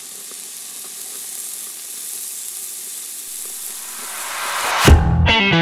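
Steady sizzling hiss with faint crackles, slowly growing louder. Near the end a loud hit of distorted electric guitar starts the intro music.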